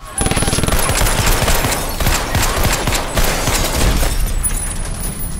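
Rapid automatic gunfire in a film gunfight: many shots in quick succession that start abruptly just after the beginning and thin out near the end.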